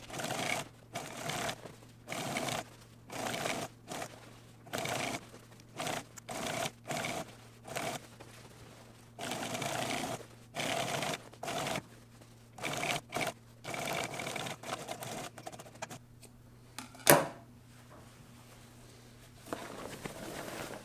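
Single-needle post-bed industrial sewing machine stitching through denim in many short start-stop runs over a steady low motor hum. The stitching stops about three-quarters of the way through, and a single sharp knock follows about a second later.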